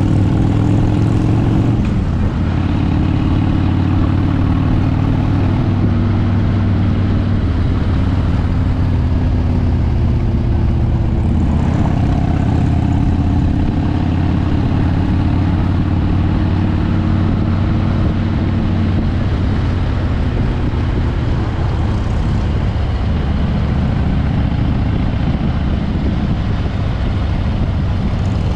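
Harley-Davidson V-twin motorcycle engine running steadily while riding, with wind noise over it; the engine note rises and falls a little as the speed changes.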